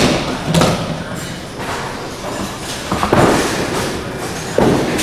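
Duckpin bowling alley: a small duckpin ball knocks against the ball return. About three seconds in comes a thud as a ball lands on the wooden lane, then it rolls with a low rumble. Another thud comes near the end.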